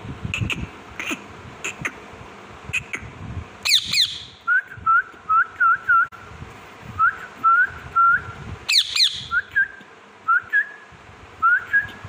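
Rose-ringed (Indian ringneck) parakeet calling: two loud, harsh screeches that fall steeply in pitch, about five seconds apart. Between and after them come runs of short, rising whistled chirps, several to a second.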